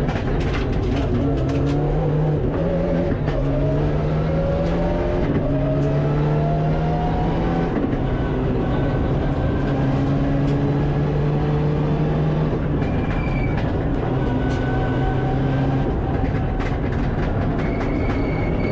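Mitsubishi Lancer Evolution IX rally car's turbocharged four-cylinder engine at full throttle, heard from inside the cockpit: the revs climb and drop back several times as it shifts up through the gears, then hold a steady pitch at speed, changing again near the end.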